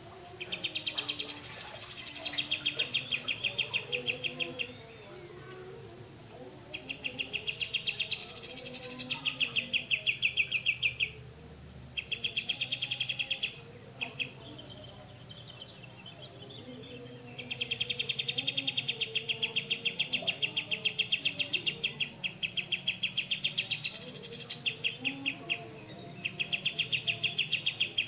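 Cucak jenggot (grey-cheeked bulbul) singing its 'besetan' song: runs of a few seconds each of fast, evenly repeated chattering notes, broken by short pauses.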